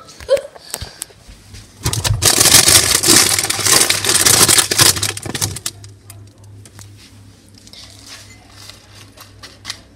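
Plastic food packet crinkling and rustling loudly as it is handled, starting about two seconds in and lasting about four seconds, followed by quieter soft rustles and light taps.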